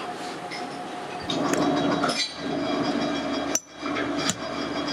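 A machine's motor running steadily with a hum, over light clinks of metal parts being handled. The running sound drops out for a moment a little past halfway, then resumes.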